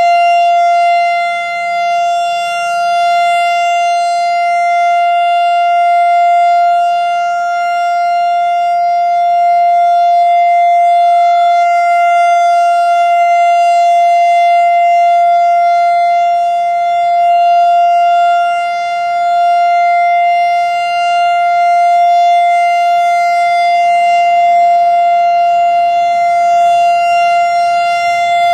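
Whelen WS-3016 outdoor warning siren sounding the Alert signal: one steady, unwavering tone with a rich stack of overtones, its loudness swelling and dipping slowly. It is loud and in healthy running order.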